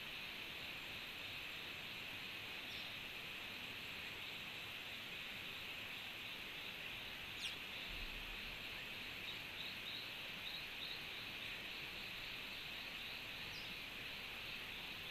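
Steady hiss of tropical forest ambience, insects and running water, with a few short high bird calls over it: one sharp falling note about seven seconds in, followed by a quick run of faint chirps.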